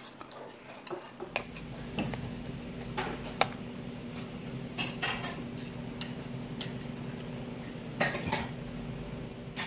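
Metal spoon and chopsticks clinking and knocking against a soup bowl as dumpling soup is eaten, in scattered clicks with a small cluster near the end. A steady low hum runs underneath from about a second in.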